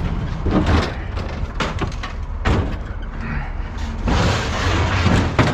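Heavy metal bangs and thuds as a refrigerator and other scrap appliances are dumped off a truck onto a scrapyard pile, several separate impacts, followed by a steadier rough noise from about four seconds in.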